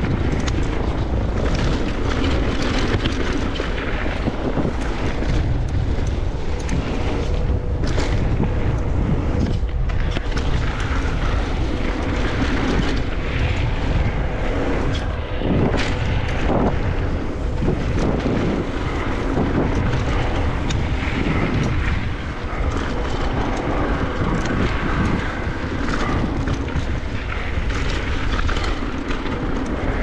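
Wind rushing over the camera microphone and mountain-bike tyres rolling on a dry dirt trail during a fast descent, a steady loud noise. Sharp knocks and rattles from the bike over bumps stand out a few times, about eight seconds in and again around fifteen to sixteen seconds.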